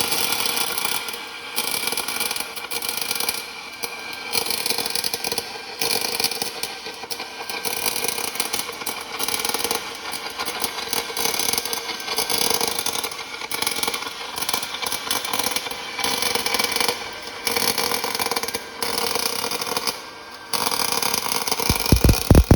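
Portable line boring and welding machine running: a steady mechanical whir with a high hiss that breaks off briefly every second or two.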